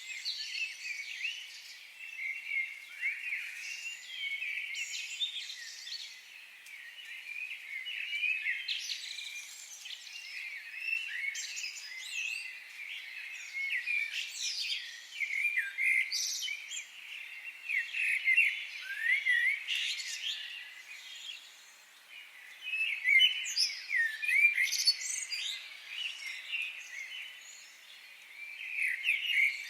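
Many birds chirping and twittering together: a dense, unbroken stream of short, overlapping high chirps that rise and fall quickly in pitch and swell and fade in loudness.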